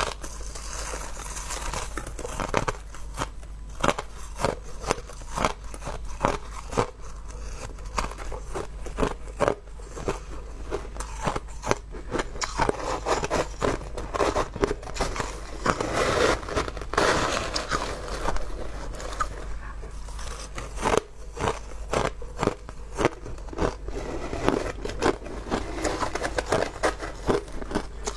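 Hard crushed ice crunching and crackling as it is bitten, and chipped and scraped in a plastic tub with a thin metal tool: a dense, irregular run of sharp crackles and clicks.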